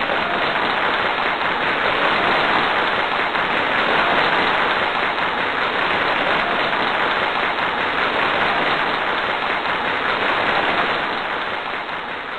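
Steady, loud hiss like heavy rain, fading out near the end.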